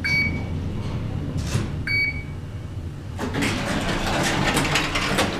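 Fujitec elevator's arrival chime dinging twice, about two seconds apart, over the car's low hum, then the elevator doors sliding for about two seconds.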